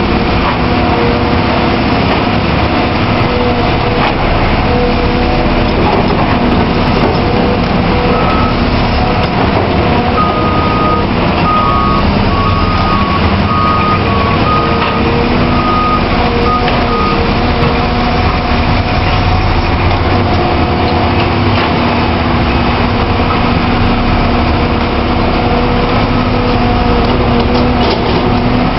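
Caterpillar 345B L hydraulic excavator's diesel engine running loudly and steadily at work. A reversing alarm beeps in short even pulses for several seconds around the middle.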